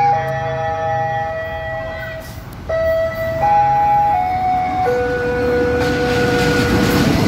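A slow melody of long held tones stepping from pitch to pitch, sometimes two at once. In the last two seconds the rumble of a train grows underneath it.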